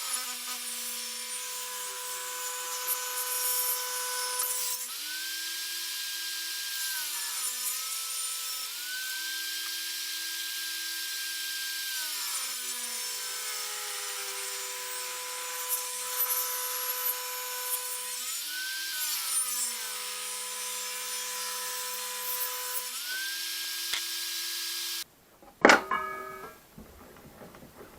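Table-mounted circular saw ripping cherry log billets lengthwise: a steady whine and hiss, its pitch sagging each time the blade bites into the wood and climbing back between cuts. Near the end the sound cuts off abruptly, followed by one sharp knock.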